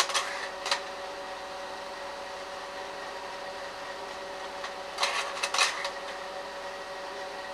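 Slide projector's cooling fan humming steadily, with the clatter of the slide-change mechanism just at the start and again about five seconds in, each change a short cluster of clicks.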